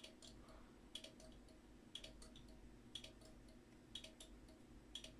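Relays in a homemade relay clock clicking faintly about once a second as the clock counts, some beats a quick pair or three of clicks.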